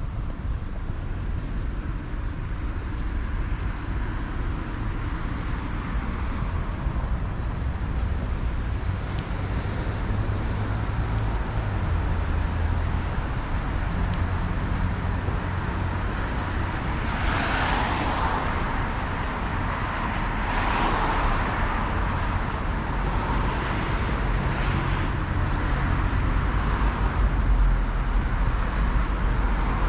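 City street traffic: cars passing with a steady low engine rumble, and a louder rush of passing-vehicle noise a little past the middle.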